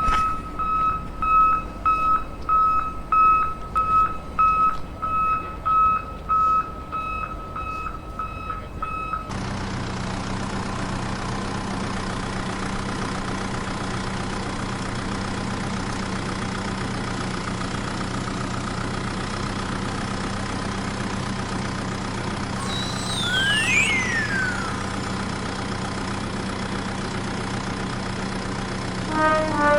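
Electronic sound effects from a toy vehicle. A reversing-style beep repeats about twice a second for roughly nine seconds, then switches suddenly to a steady engine hum. About two-thirds of the way through, two sliding whistle tones cross, one falling and one rising.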